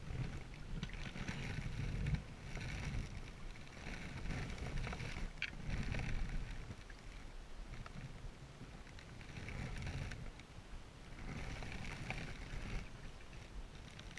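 Single-bladed paddle strokes from a small open Selway Fisher Wren canoe: water swishing and splashing in surges every two to three seconds, over a low rumble.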